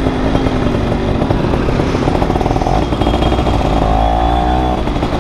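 Yamaha F1ZR's 110 cc two-stroke single-cylinder engine with a CLD C1 stainless aftermarket exhaust, running under throttle on the move; its note climbs steadily in pitch in the last second or so as the bike accelerates to overtake.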